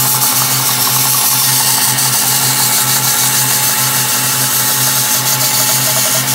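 Belt grinder running with a steel knife blade held against the belt: a steady grinding hiss over the motor's low hum, which pulses about three times a second. The edge is being ground to roll a wire edge (burr).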